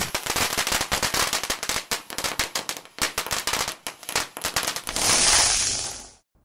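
Crackling sound effect of firecracker-style pops for a sparkling logo animation: rapid sharp crackles that thin out over about four seconds, then a hissing swell that fades away, leaving silence for the last fraction of a second.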